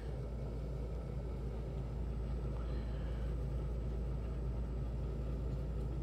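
Steady low background rumble with a faint hiss and no distinct events.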